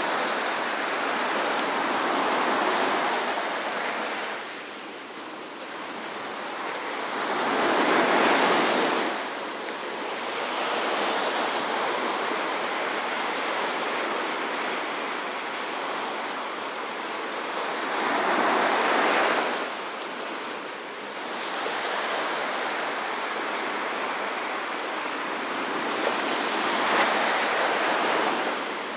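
Small ocean waves breaking and washing up a sand beach, a steady hiss of surf that swells louder with each wave, four times at intervals of several seconds.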